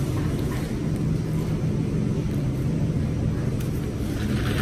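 A steady low droning hum, with a few faint sounds of chewing near the end.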